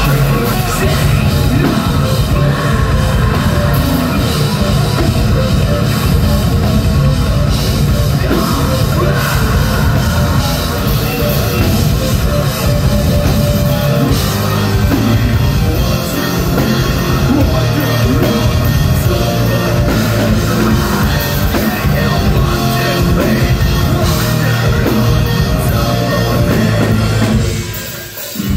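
Live heavy metal band playing loud, with drum kit, distorted guitars and a vocalist, heard from the crowd. The music drops away briefly near the end.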